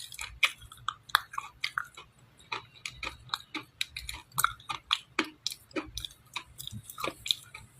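Someone chewing dry clay close to the microphone: an irregular run of sharp crunches and crackling clicks, several a second.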